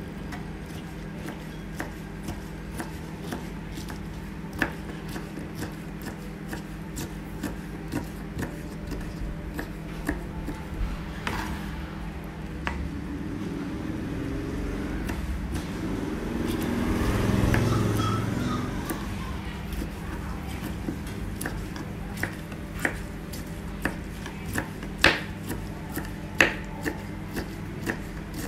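Kitchen knife cutting soft strips on a wooden cutting board: light knocks of the blade on the board, with a few sharper, louder chops near the end. A low rushing sound swells and fades about midway, over a steady low hum.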